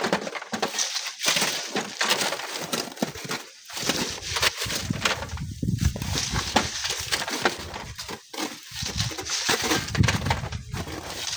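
Strong gusty wind buffeting the microphone, a fluctuating rush with many small clicks, growing heavier and lower about four seconds in.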